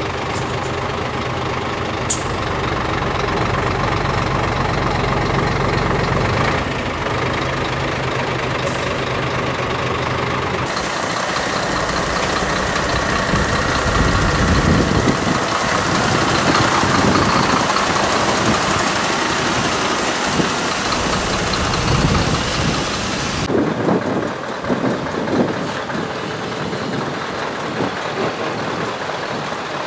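Diesel truck engines in three shots. First a Scania T-series (Torpedo) V8 idling steadily. About ten seconds in the sound cuts to another heavy truck's engine, which grows louder around the middle. Near the end it cuts again to a Scania V8 truck running at low speed.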